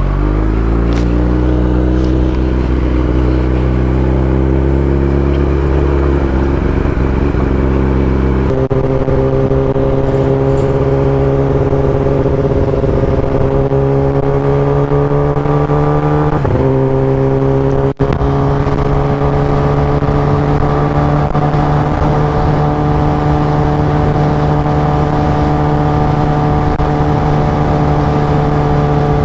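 Kawasaki Ninja ZX-10R's inline-four engine under load, revs climbing slowly as the bike accelerates along the road. The rising pitch breaks twice, about a third and a little over halfway through.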